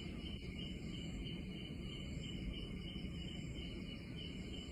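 Steady low background hum and hiss with a faint, high continuous tone, unchanging throughout.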